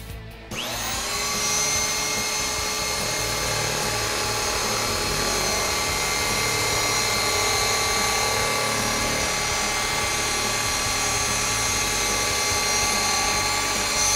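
DeWalt corded drill spinning up about half a second in, then running steadily as it drives a drill-mounted nibbler head that chews through thin sheet material along a circular cut. The sound is a steady motor whine with several high tones.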